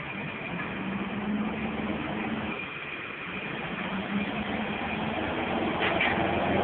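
Heavy vehicle engine running steadily, getting louder toward the end as an airport fire truck drives close, with a faint steady high whine behind it.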